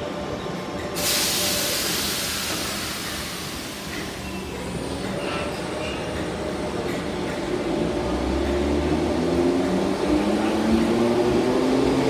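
Merseyrail Class 507 third-rail electric multiple unit pulling out of an underground platform: a sudden hiss of air about a second in, then the traction motors' hum rising steadily in pitch and getting louder as the train gathers speed.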